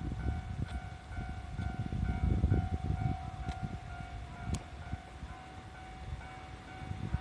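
Japanese level-crossing alarm ringing, an electronic bell tone repeating about twice a second, over the low rumble of a JR E501 series electric train passing the crossing. The rumble is heaviest in the first few seconds and then eases.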